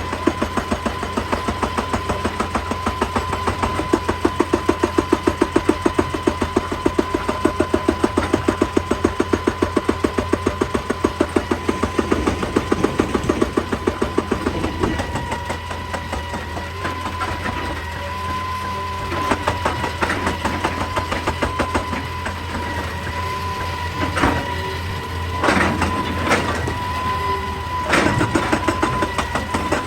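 Excavator-mounted hydraulic rock breaker hammering rapidly, several blows a second, over the excavator's running engine. The hammering stops about halfway through, leaving the engine running with a few separate knocks, and starts again near the end.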